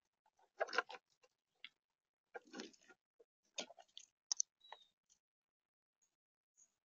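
Gray squirrels rummaging in a bucket of acorns and gnawing on them, close to the microphone. Irregular crunches and clicks of shells and nuts come in a few short clusters.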